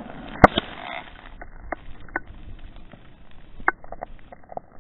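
Scattered clicks and knocks over a low rustle: a camera strapped to a dog, its housing rubbing and knocking against the dog's fur and harness as the dog moves. The sharpest click comes about half a second in.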